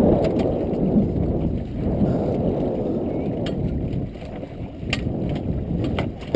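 Low rumbling wind buffeting the microphone and water sloshing against a small sailboat's hull and the jetty rocks, with a few light knocks in the second half.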